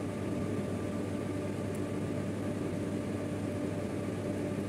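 Steady low machine hum over a faint even hiss, the room's background noise, with one faint tick about two seconds in.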